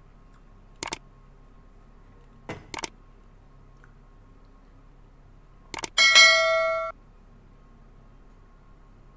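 Subscribe-button animation sound effects: a few pairs of sharp mouse clicks, then a bright bell ding about two-thirds of the way in that rings for about a second and fades.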